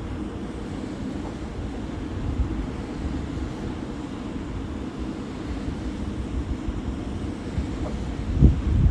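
Siemens Gamesa SWT-2.3-108 wind turbine running with a steady low drone, the noise its owner finds strange. Wind buffets the microphone in a low rumble about eight and a half seconds in.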